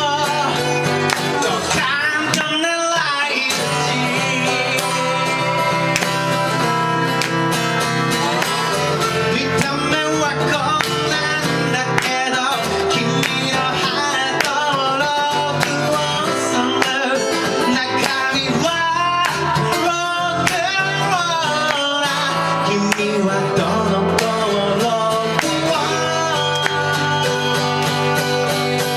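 Two acoustic guitars strummed and picked together, with a singer's voice over them, a rhythmic upbeat song played live.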